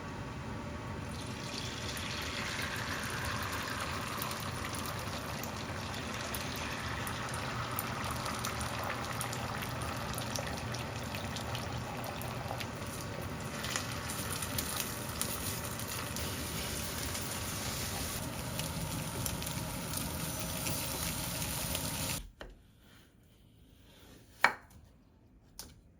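Tap water running steadily into a kitchen sink, stopping abruptly about 22 seconds in. Two short knocks follow near the end.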